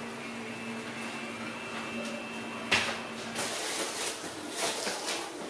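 Packaged groceries and small cardboard boxes being handled: a sharp knock a little under three seconds in, then rustling and light knocks of packets being picked up and set down. A faint steady hum runs underneath and stops just after the knock.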